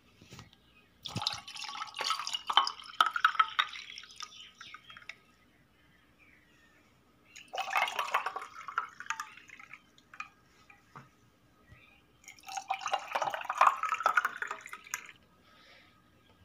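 Lemonade being poured into three glasses over ice cubes, one glass after another: three separate pours of a few seconds each, splashing, with ice ticking against the glass.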